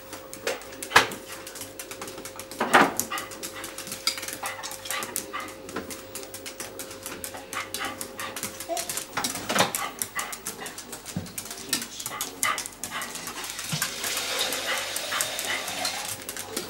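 A dog barking a few times and whining with excitement at feeding time, its claws clicking on a tile floor as it prances about.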